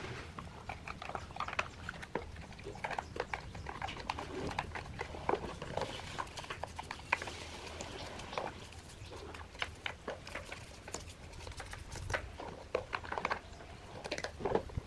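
Hand-washing a black plastic speaker cabinet panel in a plastic basin of soapy water: irregular rubbing and scraping on the plastic, small knocks of the panel against the basin, and splashing suds.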